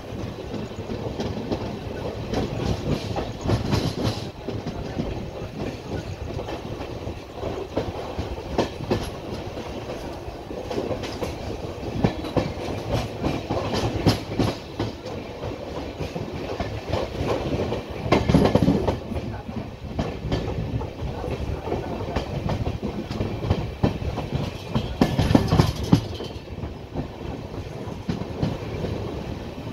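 Passenger express train in motion, heard from its coach doorway: steady wheel-and-rail rumble with continual clickety-clack of the wheels over the track. The clatter grows louder twice, about 18 and 25 seconds in.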